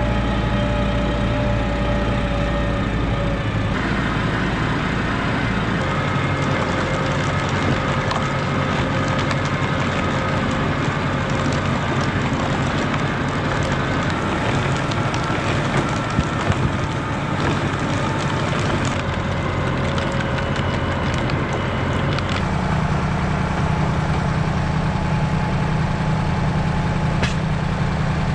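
Tractor engine running steadily while towing a loaded muck trailer, its note shifting a few times. Light clicks and rattles come through in the middle, with a few knocks about 16 seconds in.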